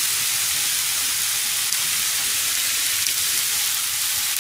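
Sliced pork, onion and eggplant sizzling steadily in a frying pan.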